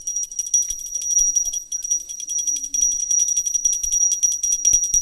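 Brass pooja hand bell rung rapidly and continuously, a steady high-pitched ringing made of many quick strokes each second.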